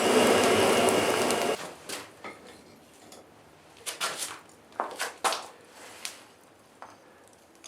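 A geared mechanical whirring stops about a second and a half in. It is followed by a few scattered light metal clinks and knocks of forge tools.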